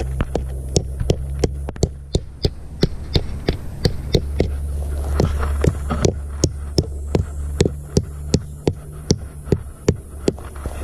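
Tent peg being hammered into the ground, about three strikes a second in a steady run, over a steady low hum.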